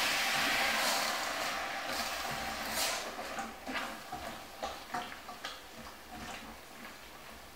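Tomato and chickpea stew sizzling in a stainless steel saucepan, the sizzle dying away over the first few seconds as the heat comes down. A wooden spoon stirring it knocks and scrapes against the pan at irregular moments.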